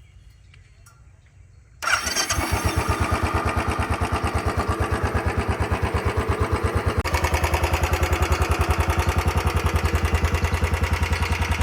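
Royal Enfield Bullet 350 BS6 single-cylinder engine starting about two seconds in and settling into a steady, evenly pulsing idle. It runs without the earlier tik-tik tappet noise: it had been low on oil, leaving the hydraulic tappets running dry, and the oil has now been topped up to the proper level.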